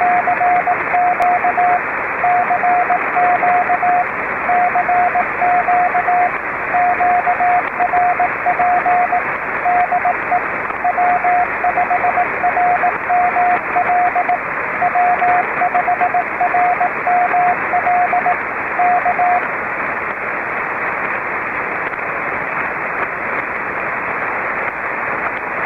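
Morse code (CW) signal heard on a ham radio receiver: one steady mid-pitched tone keyed in dots and dashes over loud static hiss. The keying stops about three-quarters of the way through, and the static carries on alone.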